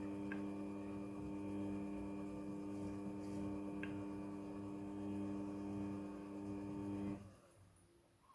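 Steady electrical hum with a stack of even overtones and a few faint ticks, fading away about seven seconds in.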